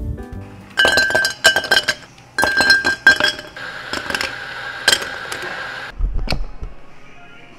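Ice cubes tipped from a metal ice scoop into tall glass tumblers: two clattering pours of ice against glass, then a few single clinks, and a dull thump near the end.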